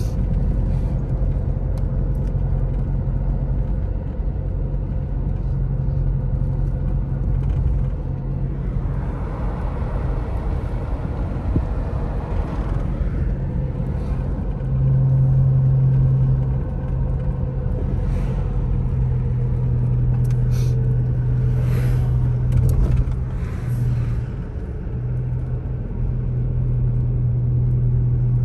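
Car driving on a paved road, heard from inside the cabin: a steady low engine and road rumble with tyre noise, swelling for a few seconds partway through.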